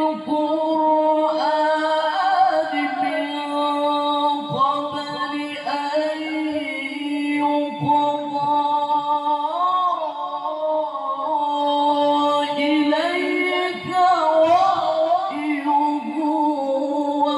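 A male qari chanting Quranic recitation in the melodic mujawwad style, amplified through a handheld microphone. He sings long held notes ornamented with winding pitch runs, with a few short breaks for breath.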